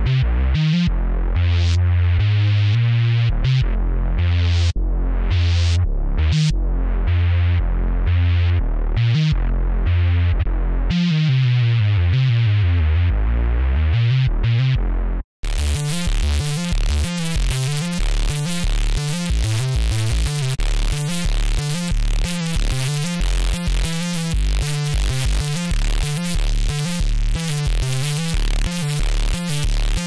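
Arturia Pigments 5 software synthesizer played from a keyboard: a deep, bass-heavy patch with sustained notes and a pitch dip and rise near the middle. After a brief dropout about halfway through, it changes to a fast, busy rhythmic patch with bright noisy highs.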